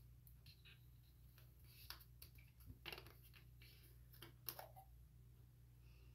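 Faint, scattered clicks of a plastic mouthwash bottle's cap being twisted off, over near silence; the sharpest click comes about four and a half seconds in.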